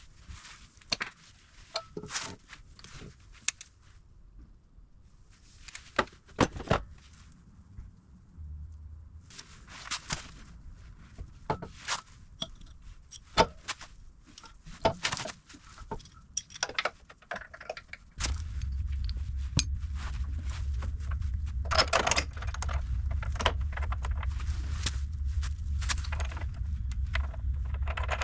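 Metal suspension hardware (bolts, washers and tools) clinking and knocking in short, irregular clatters as control-arm parts are handled and fitted. About two-thirds of the way in, a steady low hum starts and runs beneath the clinks.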